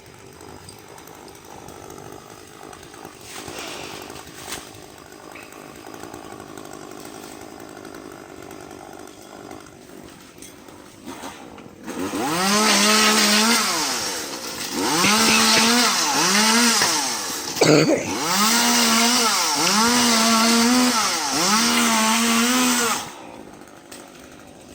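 Chainsaw, quiet at first, then revved hard about halfway in, its pitch surging up and dropping back about six times as it cuts, with one sharp knock among the cuts; it falls back to a low level shortly before the end.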